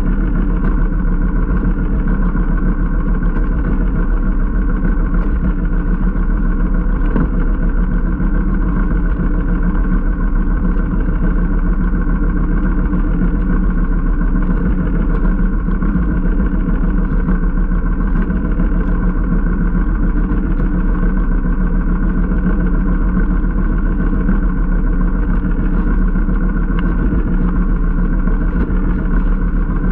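A small boat engine running steadily at an even speed.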